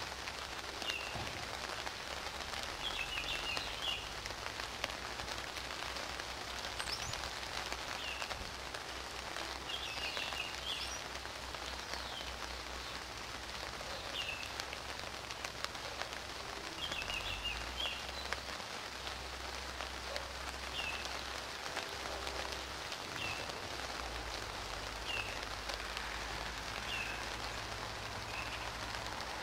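Steady spring rain falling, with a bird chirping briefly every second or two.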